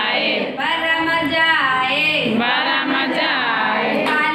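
Group of women singing a song together, with long, gliding held notes.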